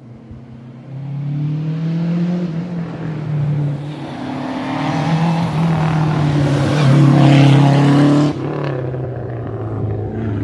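Rally car engine under hard acceleration on a stage, its pitch climbing and stepping down with several gear changes as it draws closer. It is loudest about three-quarters of the way through, then drops abruptly and carries on more quietly.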